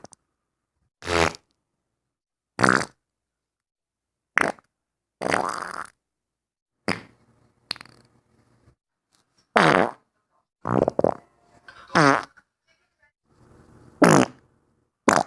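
A rapid series of about a dozen separate farts, each a short buzzing blast lasting under a second, some with a wavering pitch, with dead silence between them.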